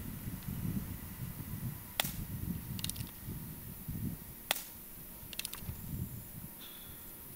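Umarex Gauntlet PCP air rifle firing: two sharp cracks about two and a half seconds apart. Each is followed a second later by a faint rattle of clicks, over a low rumble.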